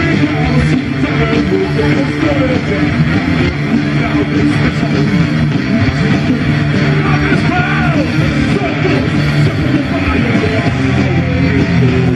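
Live heavy metal band playing: electric guitars, bass and drums at a loud, steady level, with the singer's voice over them.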